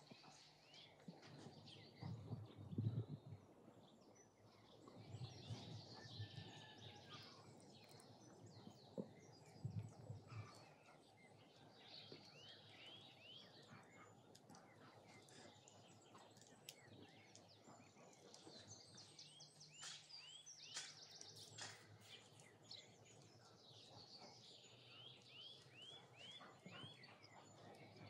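Faint garden ambience with small birds chirping in short runs of quick repeated notes. In the first ten seconds there are a few soft, low bumps.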